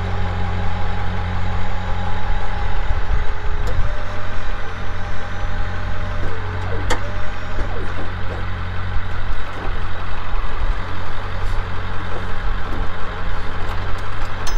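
Tow truck's engine idling steadily, with a high whine over it that changes pitch about four seconds in, and a sharp click about seven seconds in.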